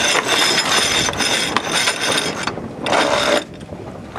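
Sailboat winch ratcheting, a fast run of metallic clicks for about two and a half seconds, followed by a short rustle.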